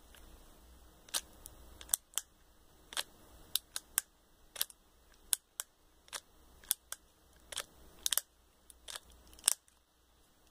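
Metal toy cap-gun revolver clicking as it is cocked and dry-fired, about twenty sharp clicks at uneven intervals. The cap-holding cylinder doesn't work, so no caps go off.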